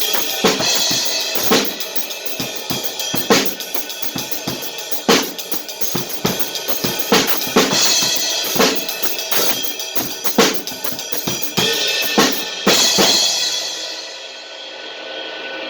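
Drum kit played to a steady beat, with bass drum and snare hits under a wash of cymbals and a heavy accent every couple of seconds. The playing stops near the end and the last hit rings out.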